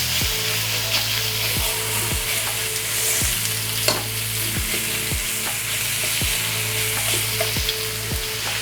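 Sliced marinated chicken breast sizzling steadily in hot oil in a frying pan as it browns, with a single sharp knock about four seconds in.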